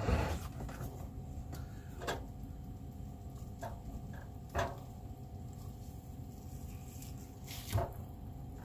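A spatula stirring food in a frying pan: a handful of short knocks and scrapes, the strongest at the start and another near the end, over a low steady background hum.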